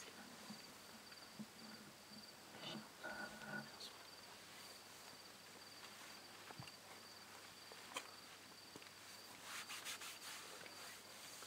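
Faint night ambience: insects chirping in a steady, evenly pulsed high trill. A single sharp click comes about eight seconds in, and a few faint crunches near the end.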